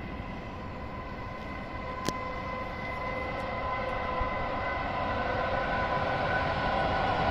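An electric-locomotive-hauled passenger train approaching: a steady hum with several tones over a low rumble, growing steadily louder. There is a single short click about two seconds in.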